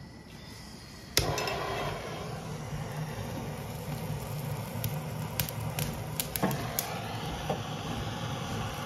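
Handheld propane torch on a green propane cylinder, clicked alight about a second in, then its flame blowing steadily into the kindling of a wood stove. A few short sharp ticks come through the noise just past the middle.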